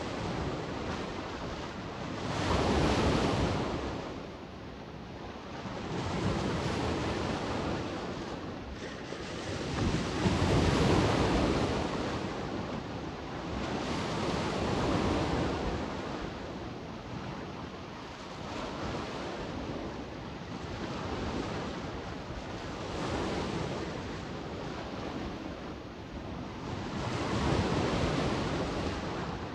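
Adriatic sea waves washing onto the shore, swelling and falling every few seconds, loudest about three seconds and about ten seconds in, with wind blowing across the microphone.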